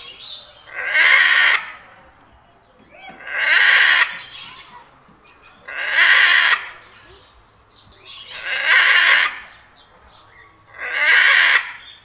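Parrot squawking: five loud, harsh calls about two and a half seconds apart, each lasting about a second.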